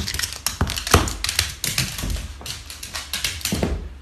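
A small dog's claws clicking and skittering on a hardwood floor as it scrambles and runs, with many quick taps and a heavier knock about a second in, dying away just before the end.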